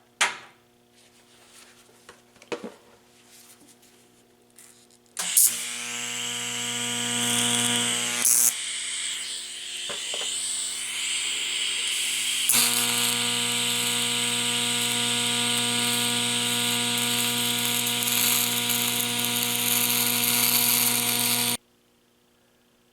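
A small electric power tool running steadily, starting about five seconds in after a few light clicks and knocks, and cutting off sharply near the end.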